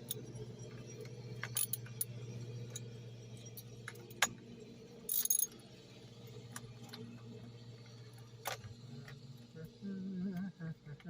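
Scattered metallic clicks and clinks, with one brief jingle about five seconds in, from a hand tool working the bar nuts on a STIHL 290 chainsaw as they are tightened. A steady low hum runs underneath.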